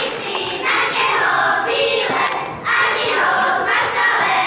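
A group of children singing a folk song together in short phrases.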